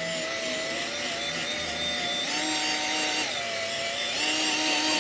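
Electric drill spinning a foam polishing pad with rubbing compound on a plastic headlight lens, its motor whining steadily. The pitch steps up about two seconds in, drops back a second later and rises again near the end as the trigger is squeezed harder and eased.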